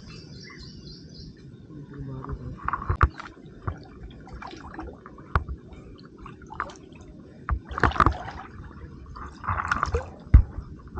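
Water splashing and sloshing in irregular bursts as a fishing net is handled in the water, with scattered sharp knocks, the loudest about ten seconds in.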